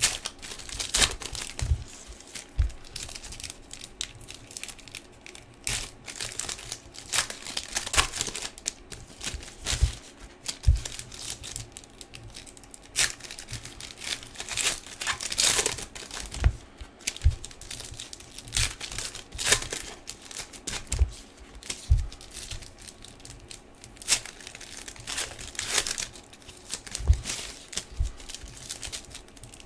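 Foil trading-card pack wrappers being torn open and crinkled by hand, an irregular run of crackles and tears with occasional soft low knocks. The packs are stubborn to open.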